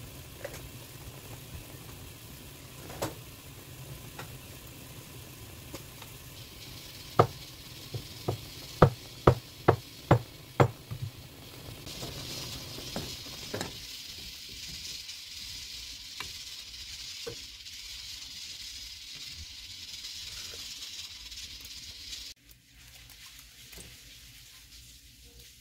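A small pan of radish in broth bubbling on the stove, with a quick run of about seven sharp knocks, a spoon against the pan as it is stirred, about a third of the way in. Then a hard rolling boil with a steady hissing bubble, which drops away to quiet near the end.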